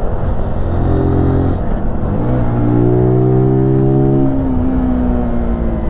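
125 cc motorcycle engine pulling uphill under steady throttle. It eases off briefly near two seconds in, pulls again, then the revs fall away over the last second and a half. Wind rumble on the onboard microphone runs under it.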